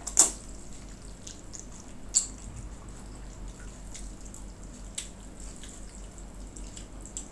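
Wet eating sounds of saucy pansit palabok rice noodles being slurped and chewed, with a sharp wet smack just after the start and smaller clicks about two and five seconds in.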